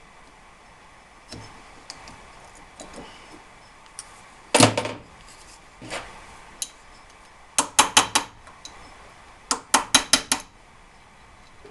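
Metal-on-metal tapping and clinking from hand tools on car parts: scattered light clicks, one sharp clank about halfway, then two quick runs of four or five strikes each.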